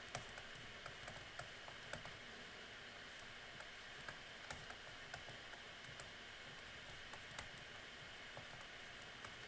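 Faint, irregular clicks over a low steady hiss: typing on a computer keyboard while an equation is being entered.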